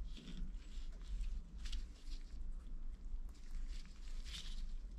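A tap being turned by hand into a brass part, cutting a thread for the steam engine's main input port: a few short, faint scratchy scrapes, over a low steady hum.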